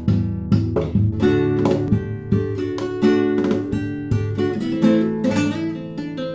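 Guitar playing an instrumental melody: quick plucked notes, several a second, ringing over sustained bass notes.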